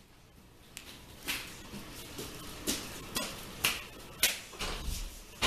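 Footsteps on a hard tiled floor as children walk along a hallway: a run of short knocks at uneven intervals, about two a second, starting about a second in.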